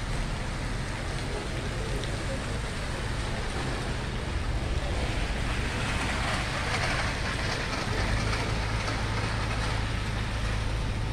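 Street traffic on wet pavement: a steady low rumble and hiss, with the tyre hiss of a passing vehicle swelling and fading about halfway through.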